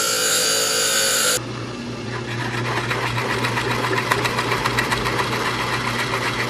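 Small electric power tool running, likely working a drill bit. For about the first second and a half it gives a steady high whine; then, after an abrupt change, a lower steady hum with fast, dense rasping.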